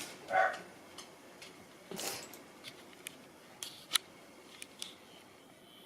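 A short cry right at the start, then scattered light clicks and taps every second or so as two cats scuffle on the floor.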